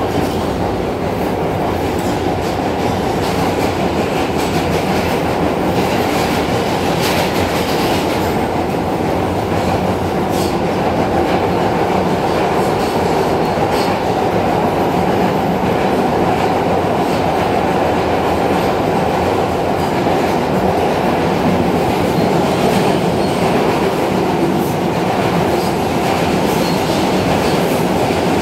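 R160 subway car running at speed, heard from inside the car: a steady loud rumble of wheels on rail and running gear, with occasional faint clacks over the rail joints.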